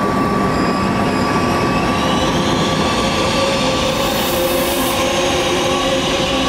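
Trenitalia Frecciabianca electric train pulling away from the platform: a steady rumble of the running train with electric whines, a higher one fading out and a lower one coming in about halfway.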